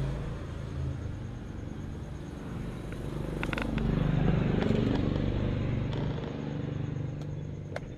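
A motor vehicle's engine running nearby, louder in the middle of the stretch, with a few light clicks.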